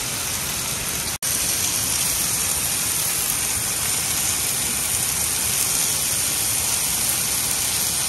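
Chicken pieces frying in an open pan on a portable butane gas stove, a steady sizzle, with a momentary break about a second in.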